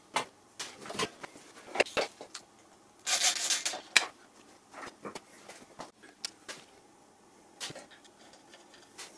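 Hand work on a motorcycle handguard mount: scattered clicks and knocks of the guard's parts, bolt and tools being handled, with a brief scraping rub about three seconds in.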